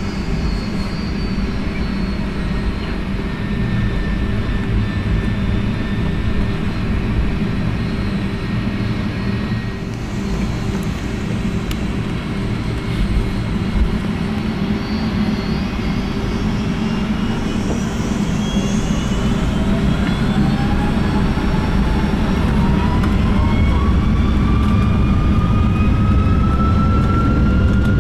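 Boeing 757-300 jet engines with a steady low rumble. In the second half several whining tones rise steadily in pitch and the sound grows a little louder as the engines spool up.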